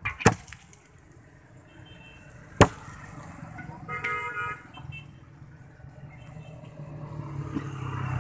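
Street traffic: a vehicle horn toots briefly about four seconds in, after two sharp knocks, and a low engine rumble builds toward the end.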